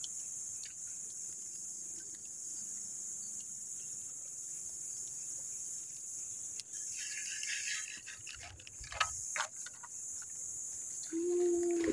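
A steady, high-pitched chorus of insects such as crickets buzzing over swampy ground. A short hiss about seven seconds in and a few light clicks a little later cut across it, and a low hum comes in just before the end.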